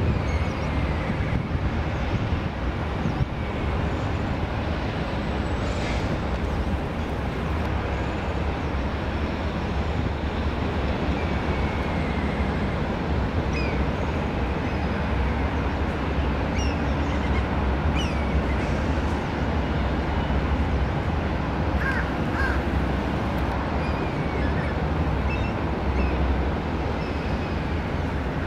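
Steady low rumble of distant road traffic, with short, high bird calls that slide down in pitch scattered through it.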